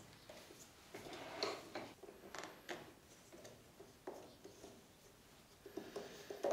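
Faint, scattered clicks, taps and rustles of hands handling small metal parts and a hex key while fitting pulleys and a toothed belt onto a stepper motor's belt drive.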